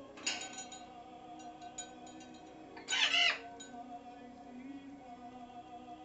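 Pet parrot squawking: a short call right at the start and a louder, harsher screech of about half a second around the middle, over background music.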